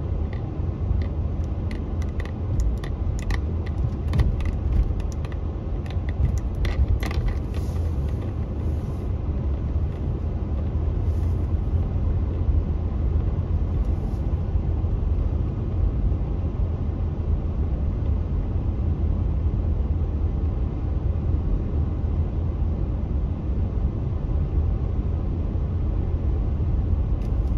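Steady low rumble of a car driving along a street, heard from inside the cabin, with a few light clicks in the first several seconds.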